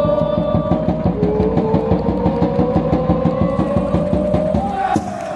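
Football supporters' chant: a fast, even drumbeat, about five beats a second, under a long held note from the stand that slowly rises in pitch and breaks off near the end.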